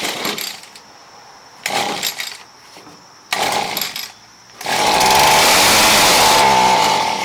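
Echo SRM230's small two-stroke engine being pull-started: three pulls of the recoil starter, then on the fourth it fires on a spray of starter fluid and runs loud and fast, at a steady high pitch.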